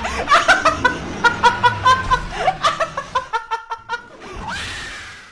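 A woman laughing in long runs of quick, rhythmic 'ha-ha-ha' pulses, about six a second at the fastest, trailing off into a breathy exhale near the end.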